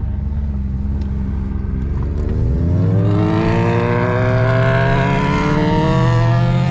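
Dodge Charger Scat Pack's 392 HEMI V8 heard from inside the cabin, running low and steady, then accelerating about two and a half seconds in, its pitch climbing steadily.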